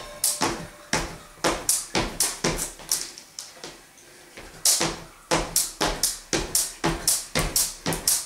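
Jump rope skipping: the rope slapping a wooden floor and sneakers landing in a quick, even rhythm. The strikes break off for about a second a little past halfway through, then pick up again at about three a second.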